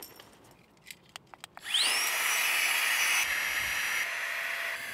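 A few handling clicks, then a small electric air pump switches on about a second and a half in: a quick rising whine as the motor spins up, then a steady high whine over a rush of air. The level steps down slightly a couple of times as it keeps running.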